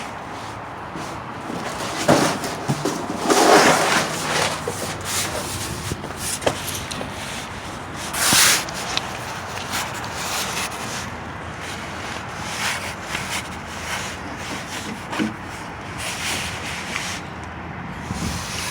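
Rubbing and scraping with scattered clicks and knocks, from someone moving about under a raised car and handling tools. The loudest scrapes come about two, four and eight seconds in.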